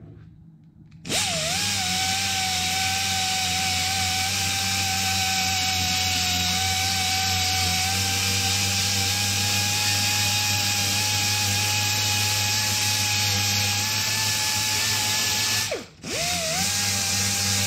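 Small handheld grinder starting up about a second in and running with a steady whine as it grinds body filler and paint off a fiberglass car hood. It stops for a moment near the end and starts again.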